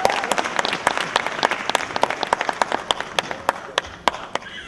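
Audience applauding: many people clapping irregularly, with some sharp close claps, thinning out and dying away near the end.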